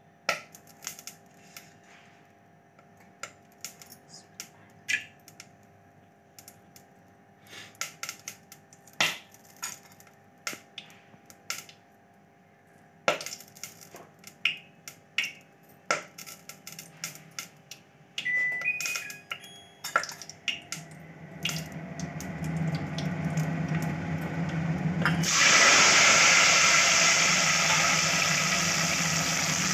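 Hot oil in a stainless-steel pot popping and crackling with scattered sharp pops. About two-thirds of the way through, a sizzle builds. Near the end a sudden loud, steady sizzle starts as sliced tomatoes hit the hot oil.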